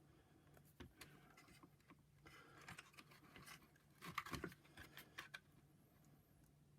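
Faint clicks and scratching of the power nozzle's small electric motor and its plastic housing being handled as the motor is slid back in under the housing, with a busier cluster of clicks about four seconds in.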